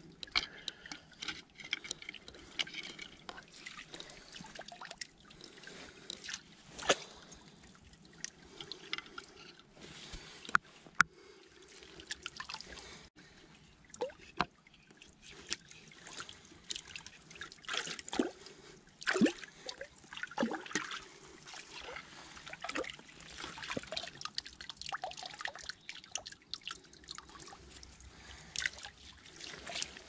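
Shallow creek water splashing and dripping irregularly as hands stir in it, with a few sharper splashes, over the trickle of the stream.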